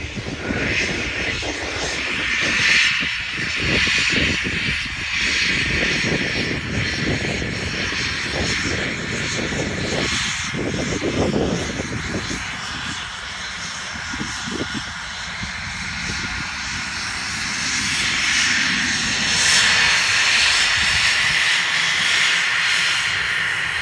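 Light business jet's rear-mounted turbofan engines running as it rolls along the runway: a steady rushing jet noise that swells a few seconds in and again near the end.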